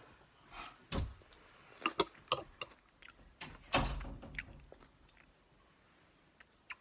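Close-mouthed chewing of a bite of chili with crunchy Frito corn chips: a scatter of sharp crunches in the first four seconds, one with a duller thump, then quieter chewing.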